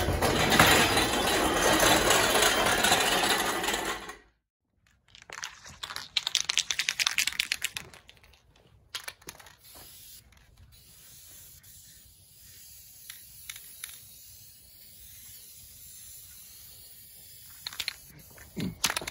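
Loud rolling noise from an engine stand's casters on a concrete floor for about four seconds, which stops suddenly. After a short gap an aerosol spray-paint can hisses in bursts for a couple of seconds, followed by scattered light clicks and rattles.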